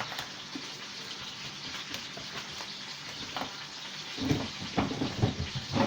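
Beef roast searing in hot grease in a skillet, a steady sizzle. A few knocks and clatters come in over it near the end.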